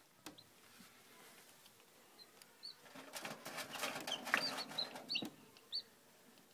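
A newly hatching chick peeping: several short, high peeps. About three to five seconds in there is a patch of rustling and scratching with small clicks as the chick struggles out of its shell.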